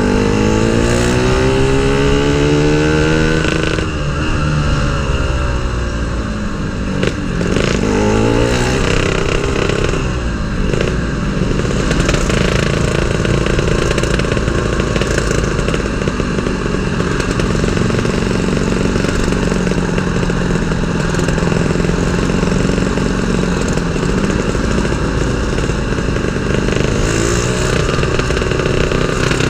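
Yamaha RX-King's 135 cc two-stroke single-cylinder engine under way. It revs up and drops in pitch at two gear changes in the first several seconds, then holds a steady speed and picks up again near the end.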